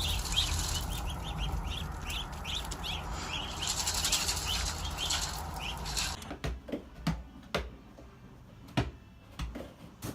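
Small birds chirping in a fast string of short, high peeps, about three a second, for the first six seconds, then a few scattered sharp knocks.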